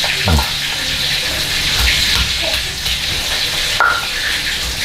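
Chicken wings deep-frying in hot oil in a wok: a steady, loud sizzle, with a few light knocks.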